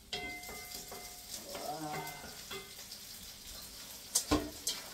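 A metal cooking pot clattering at a kitchen sink as it is washed under running water. There is a ringing clank at the start, a steady hiss with some scraping, and two sharp knocks near the end.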